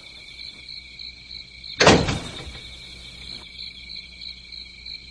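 Crickets chirping steadily in a high trill that pulses about three times a second. One sudden louder thud cuts in about two seconds in.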